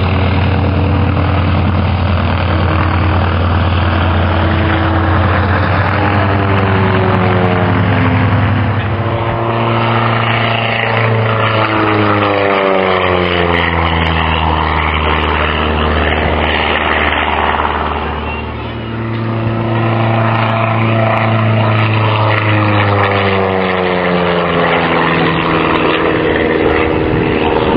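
Scottish Aviation Bulldog's four-cylinder Lycoming piston engine and propeller droning through an aerobatic display. The pitch slides down as the aircraft sweeps past, about ten seconds in and again near the end.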